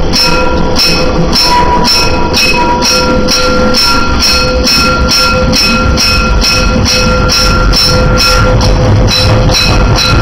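Narrow-gauge steam locomotive 99 761 working its train away from a station, heard close up on the engine: even exhaust chuffs about twice a second over a steady rumble, with a steady high tone running underneath.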